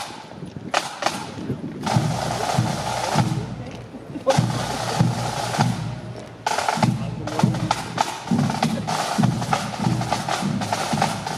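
Parade marching drums: snare drum rolls in stretches of a second or so, over a regular beat of bass drum strokes.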